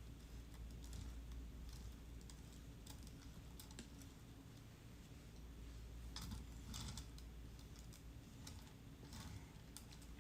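Faint scratchy scraping and irregular clicks from a trimming tool shaving leather-hard clay on a potter's wheel, busiest about six seconds in, over a steady low hum.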